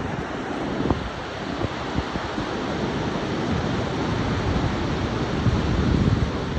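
Steady hiss of surf with wind buffeting the microphone in irregular low rumbling gusts, the gusts growing stronger toward the end.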